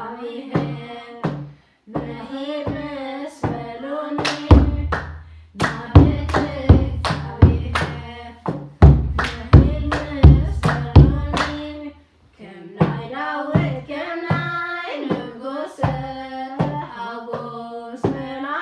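A woman and children singing an Eritrean Orthodox hymn (mezmur) together, keeping time with steady hand claps. For several seconds in the middle, deep heavy thuds join the claps.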